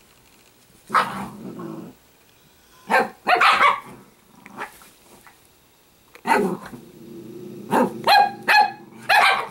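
Italian greyhounds play-fighting, barking and growling in bursts: a bark and growl about a second in, more around three seconds, then a longer growl followed by several quick yaps near the end.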